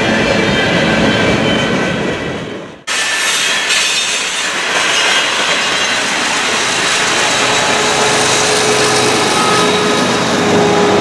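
CSX freight train cars rolling past, steel wheels running on the rails, with a brief fade and sudden cut-back about three seconds in. At the end a mid-train CSX diesel locomotive comes by, adding a low engine hum.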